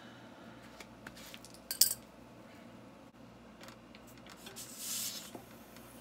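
Small metal clicks and clinks of a bicycle floor pump's hose and head being handled, the loudest a sharp click just under two seconds in. A brief hiss of air about five seconds in as the pump head goes onto the tubeless tire's valve to read its pressure.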